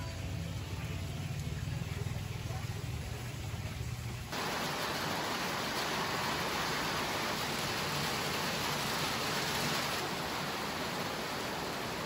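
A greenhouse circulation fan's steady low hum, then, about four seconds in, an abrupt switch to a louder, even hiss that runs on steadily.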